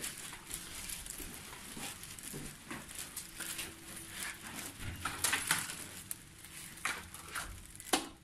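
Footsteps and rustling of clothes and a backpack, with a few sharp clicks and knocks as a hotel room door is opened, loudest around five seconds in and again near the end.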